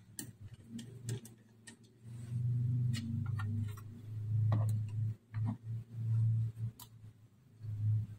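Small clicks and ticks from a precision screwdriver and tiny screws working on a small metal sound card case, with louder low, dull rubbing and bumps in the second half as the case is handled and turned over on a wooden desk.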